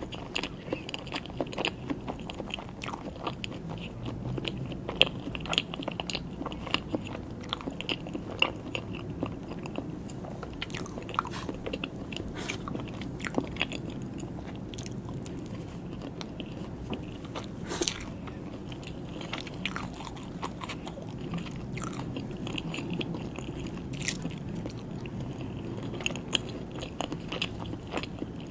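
Close-up eating sounds: mouth chewing and smacking soft cake and buttercream, with many small sharp wet clicks.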